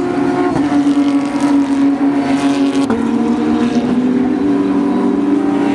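Formula 1 cars' engines running on the circuit, a loud steady high engine note that steps down in pitch about three seconds in.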